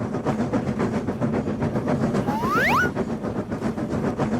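An animated train's running sound: a rapid, even rail clatter. About two and a half seconds in, a pair of quick rising whistle-like glides sounds over it.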